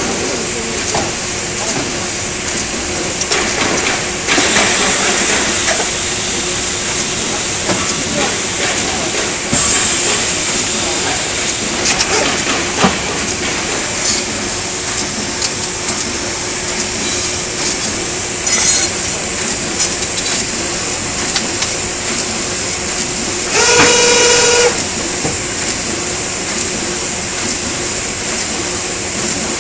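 A car radiator core assembly machine running, with a steady mechanical hum, repeated hisses of compressed air and clicks from its pneumatic cylinders. Late on, a loud pitched tone sounds for about a second.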